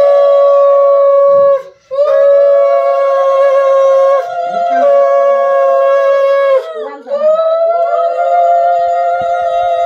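Wind-instrument music of long, loud held notes, two tones sounding together, each lasting a few seconds, with short breaks about two seconds in and again about seven seconds in.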